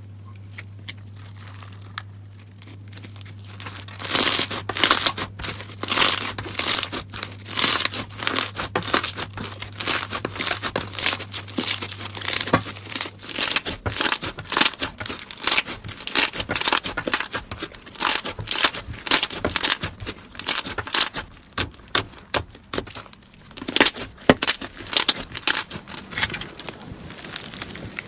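Slime being handled, squeezed and stretched, giving off rapid, irregular crackling and popping. It starts about four seconds in and carries on with a few brief lulls.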